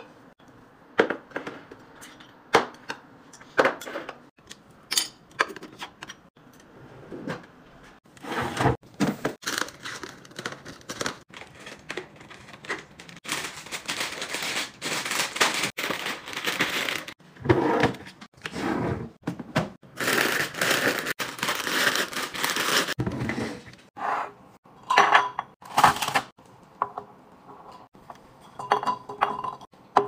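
Plastic and glass food canisters clinking and lids clicking as they are set down and closed, a series of short sharp knocks; then long stretches of crinkling as plastic snack packets are packed into a basket.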